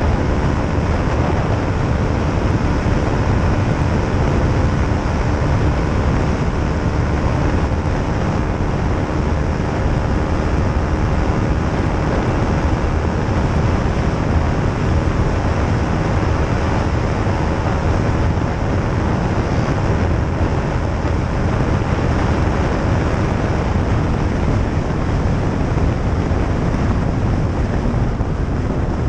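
A 2013 KTM 125 Duke's single-cylinder four-stroke engine running at an even cruising speed, heard under heavy wind rushing over the microphone.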